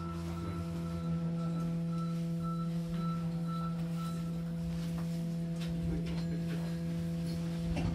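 Steady electrical hum of a Hankyu electric train car heard from inside the carriage with the doors shut: a low, even tone with overtones, and a higher tone that fades out about halfway. A faint knock comes near the end.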